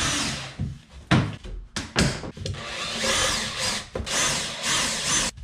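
Cordless drill running in several short bursts and then a longer run, with a few sharp knocks, as it takes out the fasteners holding a plastic wheel-arch flare to a car body.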